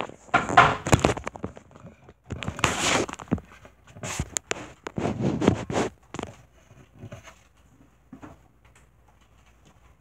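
Rustling and scraping bursts from the recording device being handled and set in place, three loud ones in the first six seconds, then faint light taps that fit playing cards being laid out on a table.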